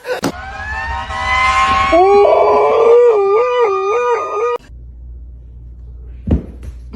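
A pet animal gives one long howl that rises in pitch, then holds with a regular wavering and cuts off suddenly after about four and a half seconds. A low hum and a single knock follow near the end.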